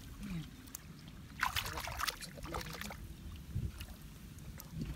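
Hands splashing and scooping through shallow muddy water, with a cluster of splashes about a second and a half in, over a steady low rumble.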